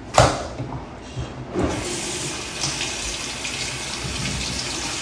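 A knock, then a tap turned on about a second and a half in, with water running steadily into a sink.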